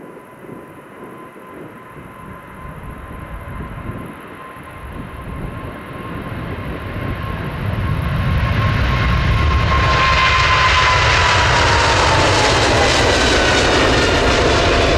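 Boeing 777 freighter's twin GE90 turbofans at takeoff thrust on the takeoff roll, growing steadily louder as the aircraft nears. The engine whine drops in pitch as it passes and lifts off.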